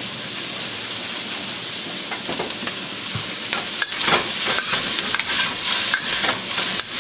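Sliced vegetables and pork sizzling in oil in a hot wok, a steady hiss. From about four seconds in, a metal spatula scrapes and clinks against the wok as the food is stir-fried.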